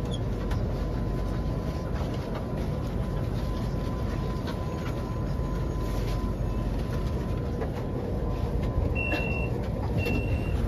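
Cabin noise of a DKZ31 metro train pulling into a station: a steady rumble with a faint steady whine. Near the end, two short high beeps sound, the door warning signal.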